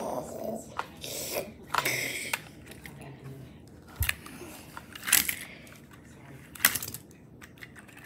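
Plastic toy cars being fitted into a plastic toy-track launcher: a handful of sharp plastic clicks and clatters, spaced a second or so apart.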